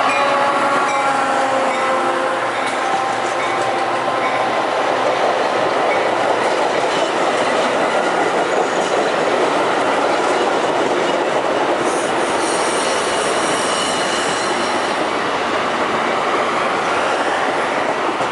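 A Metra passenger train of bilevel Gallery Cars rolling past close by: a steady loud rumble and rattle of wheels on rails. In the first couple of seconds the EMD F40PHM-3 diesel locomotive's hum drops in pitch as it goes by, and a thin high wheel squeal sounds for a few seconds about twelve seconds in.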